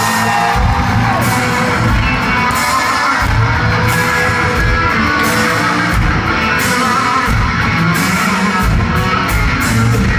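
Live rock band playing loud in a large concert hall, heard from the crowd: electric guitars over a steady drum beat.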